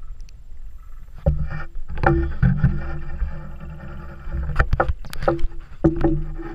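Water sloshing and muffled knocks as a camera is dipped underwater beside a metal diamond-plate float or boat, with a low steady hum coming and going.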